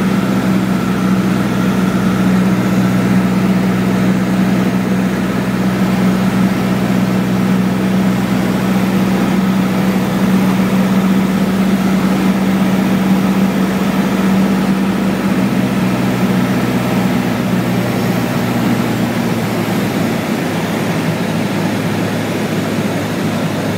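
Cessna 152's Lycoming four-cylinder engine and propeller droning steadily in flight, heard inside the cabin. In the last few seconds the engine note drops lower and a little quieter.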